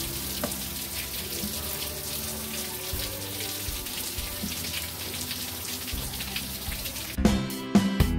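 Steady rain falling, a continuous hiss, with faint music underneath. About seven seconds in, louder music starts.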